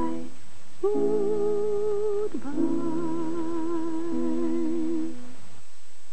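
Slow sung 'goodbye' at the end of a children's goodbye song: two long drawn-out notes with vibrato, a lower held note joining under the second. The singing stops about five and a half seconds in.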